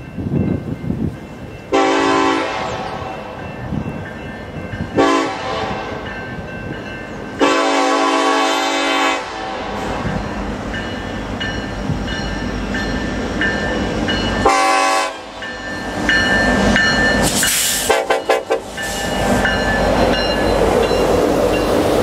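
Multi-chime Nathan K5LLA air horn on BNSF EMD locomotives sounding several blasts, a long one of nearly two seconds among shorter ones. Later the EMD diesel locomotives rumble past with rising wheel noise.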